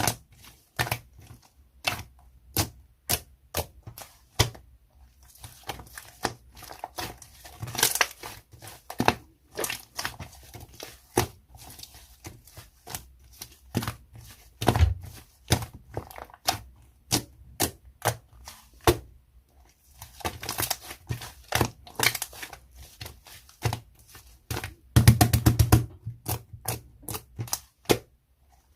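Slime being squished and poked by hand, making a string of sharp clicks and air-pocket pops, about two or three a second, with crackly stretches between them. A fast run of pops comes near the end.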